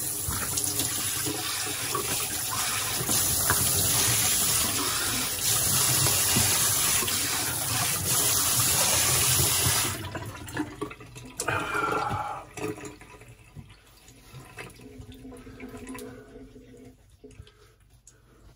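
Bathroom tap running into a sink while shaving lather is rinsed off the face by hand, with splashes through the steady rush. The water stops abruptly about ten seconds in, and quieter drips and splashes follow, fading away.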